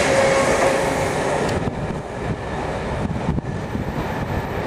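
Diesel-hauled train with Class 67 diesel-electric locomotives: the rumble of a locomotive and coaches passing close by. About a second and a half in, it cuts to a quieter, steadier rumble of the train approaching from further off.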